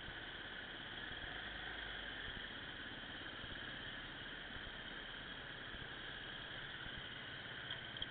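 Steady hiss from a low-quality camera microphone. No engine, voice or impact stands out above it.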